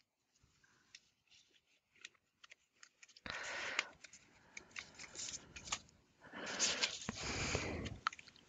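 Paper cards being shuffled and handled close to the microphone: faint taps and clicks at first, then two louder spells of paper rustling, briefly about three seconds in and again for nearly two seconds from about six seconds.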